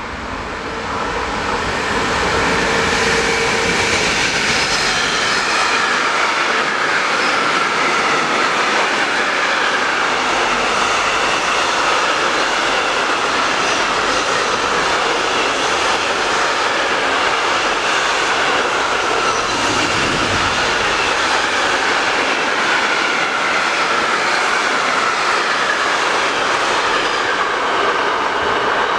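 Container freight train hauled by an electric locomotive passing close by: the steady loud noise of wheels rolling on the rails, building over the first couple of seconds as the train arrives and then holding even as the long line of container wagons goes by.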